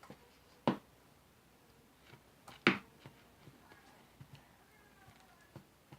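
Sticky homemade slime being kneaded and poked by hand: two short sticky pops, about two seconds apart, with a few faint small clicks between them.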